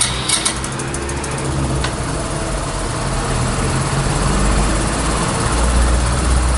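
KYMCO GP125 scooter's single-cylinder four-stroke engine idling steadily just after an electric start, on a fast idle while it warms up from cold. A few light clicks come in the first couple of seconds.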